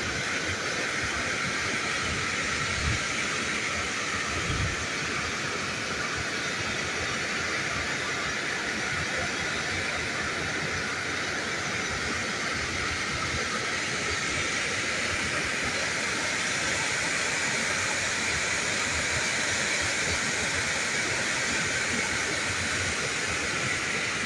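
Floodwater overflowing a dam's spillway wall and rushing down in a white cascade, making a steady, very loud rushing.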